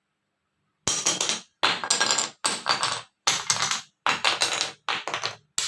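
Wooden sticks of graded lengths, cut so that each sounds near a note of the sargam scale, are dropped one after another onto a hard floor. There are seven drops a little under a second apart, starting about a second in. Each stick lands with a short clattering rattle as it bounces, and the pitch varies from stick to stick.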